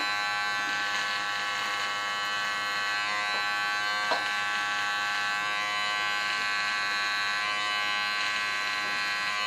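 Electric hair clippers fitted with a comb guard buzzing steadily while shaving the side of the head, with a brief tick about four seconds in.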